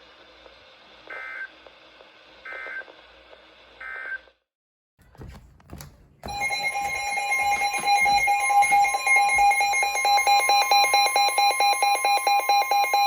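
Emergency Alert System broadcast: three short data bursts about a second and a half apart, the end-of-message code of one alert. After a brief gap, a loud steady alert tone with several pitches starts about six seconds in, pulsing slightly, as the attention signal of the next alert.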